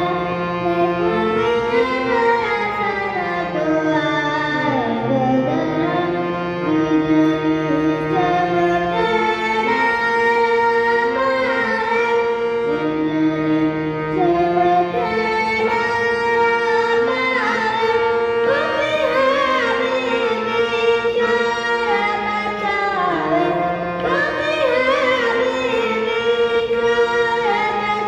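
Hindustani classical vocal in raag Des: a singer holding and sliding between notes with ornamented phrases, over sustained harmonium accompaniment.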